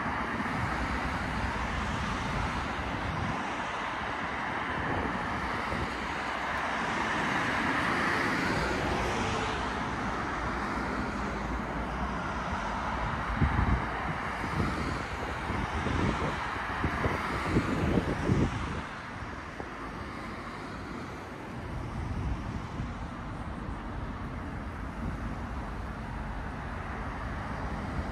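Road traffic noise: a steady rush of passing vehicles, swelling as one goes by about eight seconds in. Around the middle come several low thumps.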